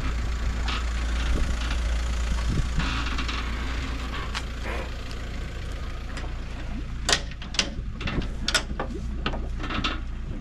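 An engine idling low and steady, with a series of sharp knocks and clanks in the second half, during a boat launch from a trailer.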